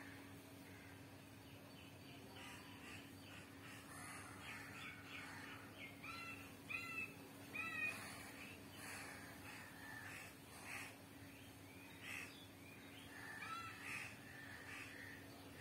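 Crows cawing repeatedly, with a quick run of calls in the middle and more near the end, over a faint steady hum.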